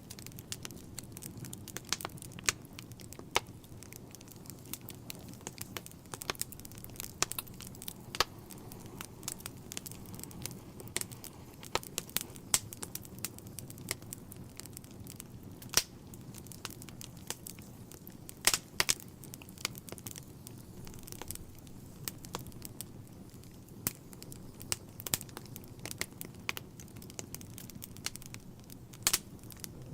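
Wood fire burning in a fireplace: logs crackling with irregular sharp pops, some louder than others, over a low, steady rush of the flames.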